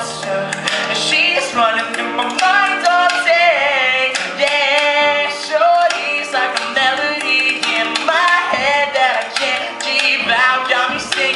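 Live pop song: a young man singing into a microphone while playing chords on a grand piano, with a beat tapped out by hand on a tabletop as percussion.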